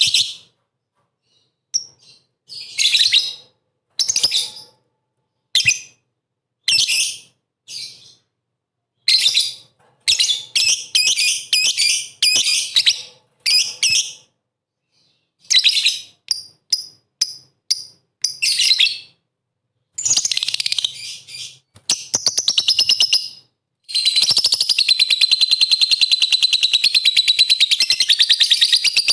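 Lovebird chattering in shrill bursts of rapid chirps, one to two seconds each, with silent gaps between them. From about four-fifths of the way through, the chatter becomes one unbroken, very fast trill.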